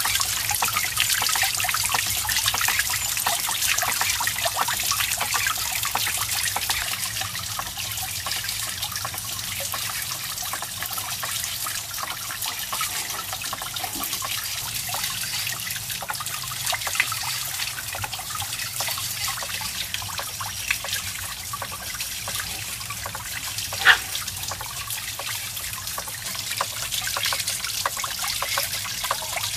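Water trickling and splashing steadily as it pours from a pipe onto a small wooden water wheel and drops into a shallow pool. A single sharp tap sounds about 24 seconds in.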